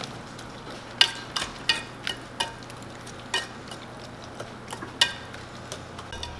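Wire whisk beating an egg and cheese mixture in a mixing bowl, the wires clinking sharply against the bowl's side at irregular intervals, roughly every half second.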